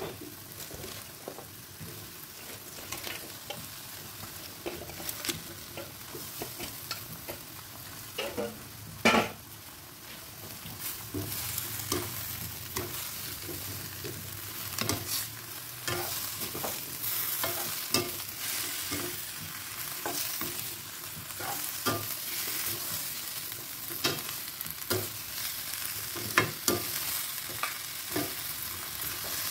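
Wooden spatula and metal spoon stirring and tossing cabbage and pork in a non-stick wok, scraping and clacking against the pan over a steady sizzle. One loud knock comes about nine seconds in, and the sizzle grows louder soon after.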